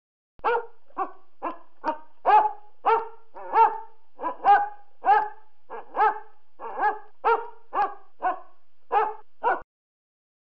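A large dog barking repeatedly, about twenty single barks at roughly two a second, then stopping abruptly.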